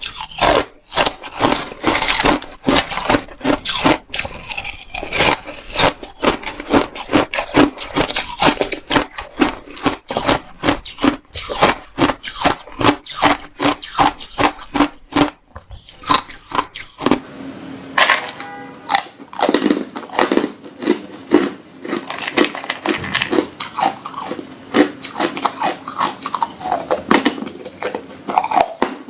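Close-miked mouth sounds of hard ice being bitten and chewed: a rapid, continuous run of sharp cracks and crunches, with a brief pause about fifteen seconds in.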